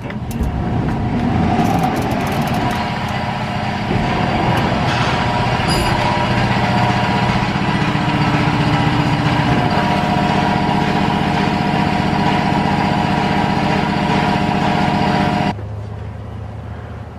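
Milking-parlor machinery running: a steady mechanical drone with a constant hum, which drops away suddenly near the end.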